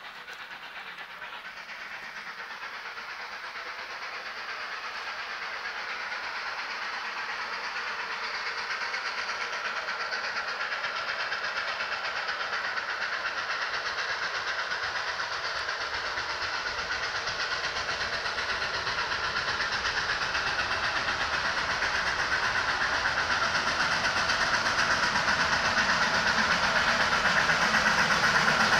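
Steam locomotive approaching through a cutting, its running noise growing steadily louder the whole time as it comes closer.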